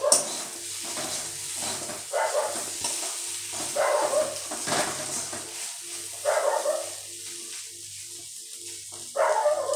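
A spatula stirring stuffed okra in an aluminium kadhai over a gas flame, with a light sizzle of frying oil. A dog barks several times in the background, and these barks are the loudest sounds.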